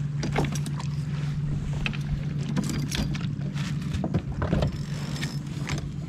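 A steady low hum and scattered light clicks and knocks from a fishing kayak and its gear.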